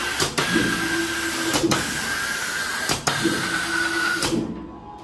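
CNC hot-melt glue spray machine spraying: a loud steady air hiss from the spray head with a motor whine as the gantry moves. It breaks off briefly three times and stops shortly before the end.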